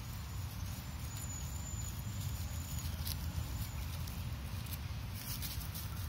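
Light patter and crackle of footsteps in dry leaves and grass, a few faint clicks at a time, over a steady low rumble.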